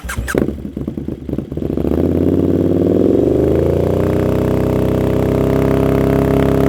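KTM 1290 Super Duke R's V-twin through an Austin Racing V3 150mm exhaust: uneven low-rev running for about a second and a half, then revs climbing over about two seconds and holding high and steady.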